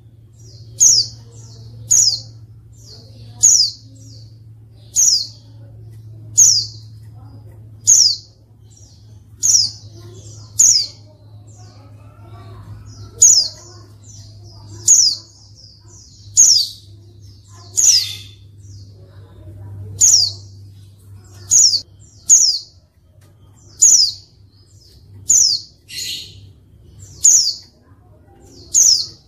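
A caged white-eye (pleci) repeats a short, sharp, high call, each one a quick downward sweep, about once every one and a half seconds. It is a female's call, used to provoke silent or lazy males into answering and singing.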